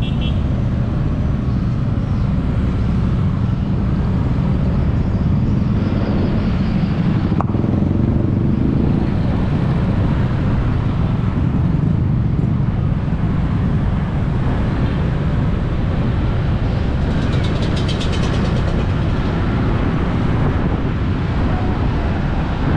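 Steady low rumble of motor vehicles.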